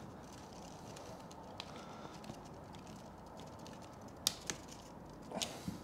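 Small clicks and scrapes of copper cable cores being pushed into a wall socket's terminals and the terminal screws turned with a flat-head screwdriver. The clicks are sparse and faint, the sharpest two close together a little past the middle.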